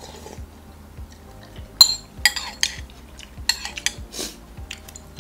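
Metal spoon clinking and scraping against a glass bowl while laksa broth is spooned up, with several sharp ringing clinks through the middle. Faint background music with a steady beat runs underneath.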